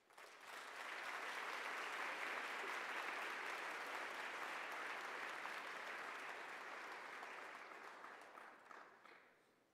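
Audience applauding. The applause builds within the first second, holds steady, then dies away near the end.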